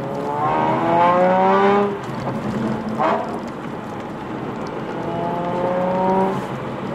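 Nissan Fairlady Z Z34's 3.7-litre V6 engine heard from inside the cabin, revving up under acceleration for about two seconds, easing off, giving a brief rev about three seconds in, then pulling up in pitch again.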